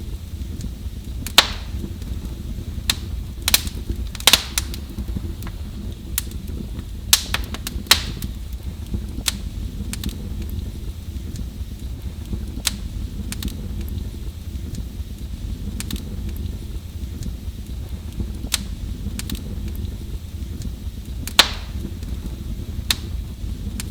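Fire burning in a fireplace: irregular crackles and pops over a steady low rumble of the flames, with a few louder, sharper pops about a second in, around four and eight seconds, and near the end.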